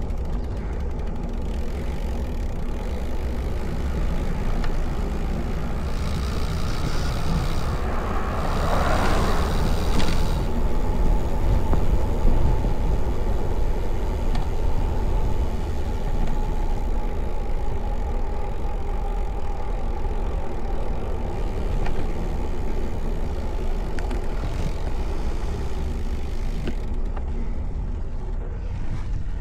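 Wind rushing over an action camera's microphone, with tyre noise from a road bike rolling along pavement, a steady low rumble. The rushing swells louder for a couple of seconds about eight to ten seconds in.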